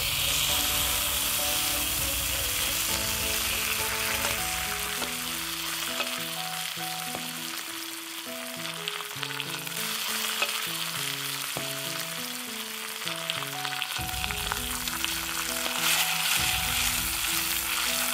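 Saffron milk cap mushrooms sizzling loudly in butter in a frying pan over a wood fire. They are being fried hard on full heat so that the water in the mushrooms steams off.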